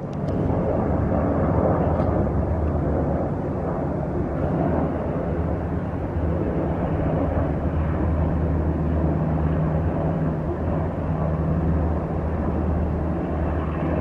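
Steady engine drone of a moving vehicle, a low hum with rumbling noise, holding level throughout.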